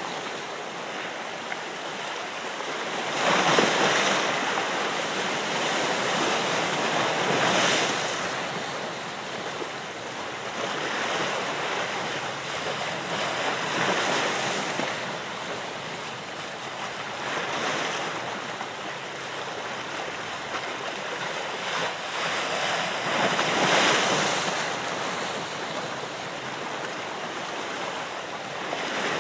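Ocean waves washing in, a steady hiss that surges and ebbs every few seconds.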